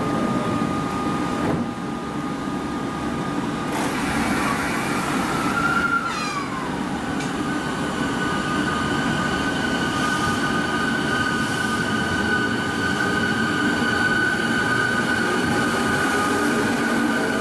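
E217-series electric commuter train shutting its doors with a brief thud about four seconds in, then pulling out of the platform as its electric drive gives a steady whine of several tones over the running rumble.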